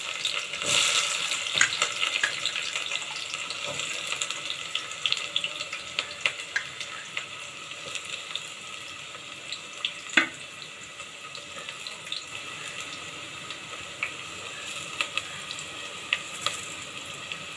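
Chopped onions sizzling in hot oil in a pressure cooker, loudest as they go in and settling into a quieter, steadier sizzle with scattered crackles. A single sharp knock about ten seconds in.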